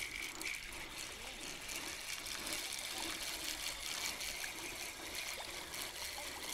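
Steady trickle of flowing water in a shallow current.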